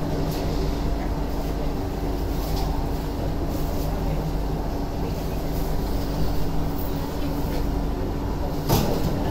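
Steady hum inside a stopped Singapore MRT train cabin, with a sudden loud rush near the end as the doors begin to open.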